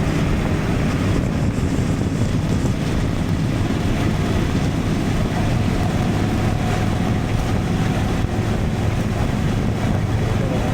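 Honda Transalp 750's parallel-twin engine running at a steady cruise, a constant low hum under heavy wind rush on the action camera's onboard microphone.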